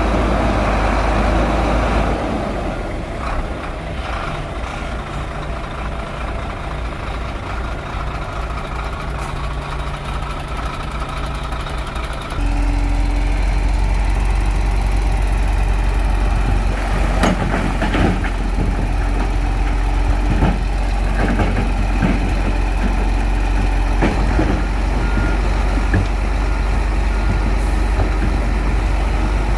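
Heavy Shantui bulldozer's diesel engine running with a deep, steady hum. It eases off about two seconds in and comes back up to full power after about twelve seconds. Several sharp clanks from the machine or the stone it is pushing follow partway through.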